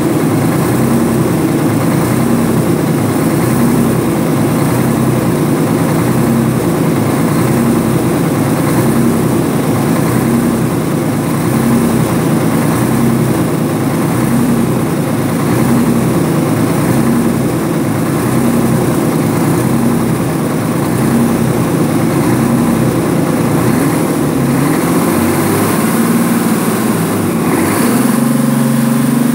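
A Detroit Diesel 12V71TA two-stroke V12 turbocharged diesel engine idling steadily, with a slow, regular throb in its note. Near the end the engine speed picks up.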